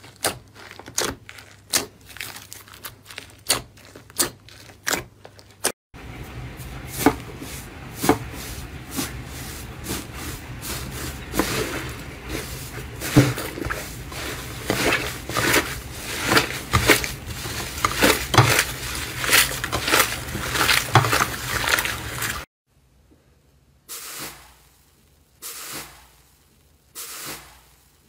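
Hands working slime in three short takes. First, sharp crackling clicks about two a second as slime packed with foam chunks is pressed and pulled. Then about sixteen seconds of denser squishing and crackling as a thick slime is kneaded. Near the end, three separate crunches as a finger pushes through the dried crust of an iceberg slime.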